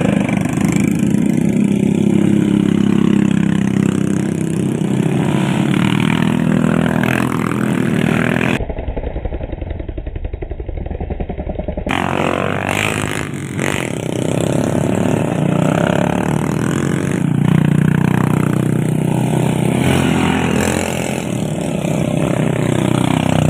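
Small motorcycle engine running hard and revving, with rattling from the bike, typical of a laden oil-palm transport motorcycle climbing a steep slope. About a third of the way in, the sound drops for a few seconds to a quieter, muffled engine beat before the full engine sound returns.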